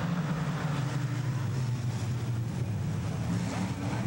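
A pack of dirt modified race cars under full throttle just after the green flag, their V8 engines blending into a steady, loud drone.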